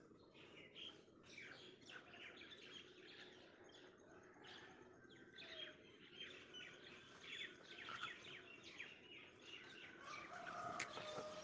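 Faint birds chirping, with many short chirps and trills overlapping throughout. A single sharp click sounds near the end.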